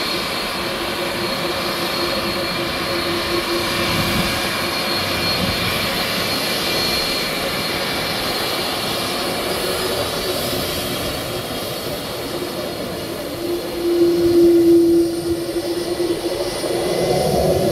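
KLM Airbus A330 jet engines whining steadily at low taxi power as the airliner rolls along the runway, with a held tone over the roar. The sound swells briefly about fourteen seconds in and rises again near the end as the jet turns.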